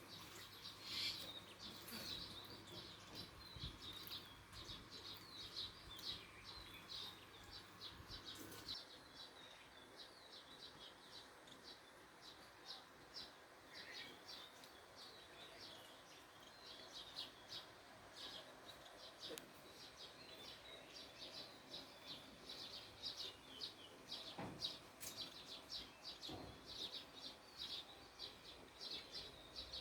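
Small birds chirping faintly: many quick, high chirps in a dense chatter that thins out for a few seconds partway through.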